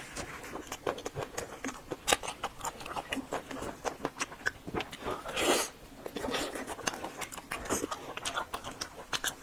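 Close-miked chewing: a steady run of small wet clicks and crunches from a mouthful of spicy food, with one louder, longer crunch about five and a half seconds in.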